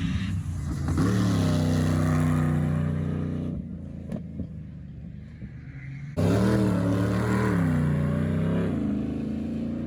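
Off-road 4x4's engine revving in two surges: the revs climb about a second in and hold for a couple of seconds, drop back, then climb sharply again about six seconds in and hold before easing off.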